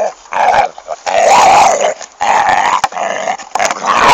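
A dog play-growling over a stick: a string of about four or five loud, rough growls, one drawn out for nearly a second, with short breaks between them.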